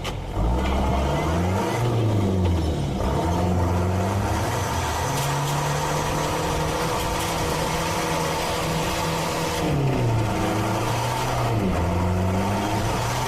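Off-road 4x4's engine revving up and down several times as it works over rough ground. Its pitch holds steady for a few seconds in the middle, then drops and climbs again.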